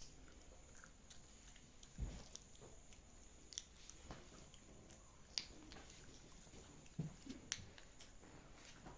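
Faint chewing from someone eating while asleep: scattered small wet clicks, with a couple of soft low thumps about two and seven seconds in.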